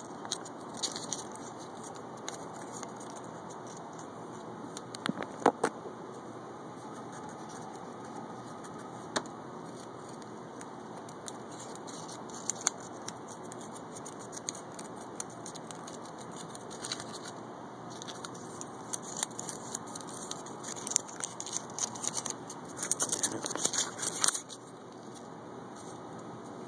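Folded paper slips being handled and unfolded, crinkling in short crackles, with a couple of sharp clicks about five seconds in and a busy run of crinkling about 19 to 24 seconds in.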